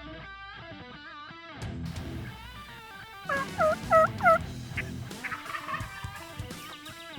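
Wild turkey tom gobbling: one loud, rapid run of quavering, falling notes about three seconds in. Electric guitar music plays throughout.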